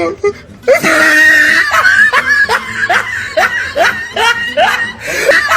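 A person laughing hard in a high-pitched cackle. It opens with a loud shriek-like burst under a second in, then runs on as short repeated "ha" bursts, about three a second.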